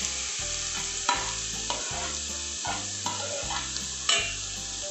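Grated carrot sizzling in hot ghee as it is scraped off a plate into a metal pot, with the metal ladle clinking against the plate and pot several times; the sharpest clink comes about four seconds in.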